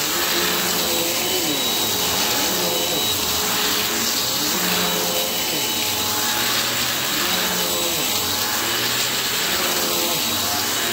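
Small Bissell upright vacuum cleaner running steadily over a thick shag rug. Its pitch dips and recovers about every one and a half to two seconds as it is pushed and pulled across the pile.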